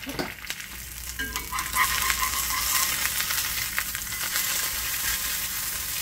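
An egg frying in hot oil in a cast-iron skillet, sizzling steadily. About two seconds in the sizzle grows louder as a slotted metal spatula lifts the egg and turns it over.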